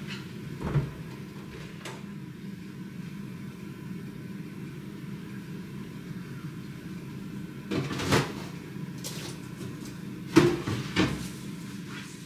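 Built-in refrigerator door being pulled open about a second in and shut with two knocks near the end, with items being handled inside it in between.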